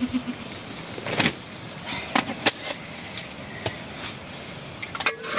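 Scattered sharp knocks and clicks over a steady hiss, the sounds of cooking at an open wood fire.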